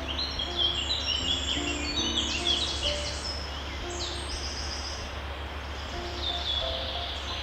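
Many small birds chirping together, quick overlapping high chirps and trills, busiest in the first few seconds and thinning out in the middle. A steady low hum runs underneath.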